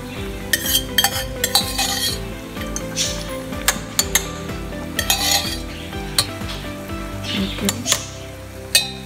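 A perforated stainless steel ladle scraping and clinking against the inside of a stainless steel pressure-cooker pot as soft cooked spinach and dal are scooped out, in irregular strokes with a few sharp knocks.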